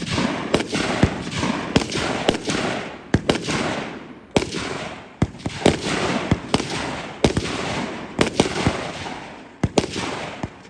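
Gunshots at a shooting stage: about twenty sharp shots at uneven spacing, roughly two a second, each trailing off in a long echo.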